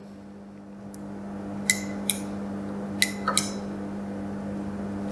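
Several sharp clicks, about five spread over two and a half seconds, as the lamp's power is switched to step the LED light through its modes. A steady low hum runs underneath.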